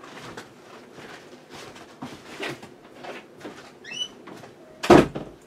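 Faint distant household noises, scattered light knocks and clatter, with a short squeak about four seconds in, then a loud thump near the end.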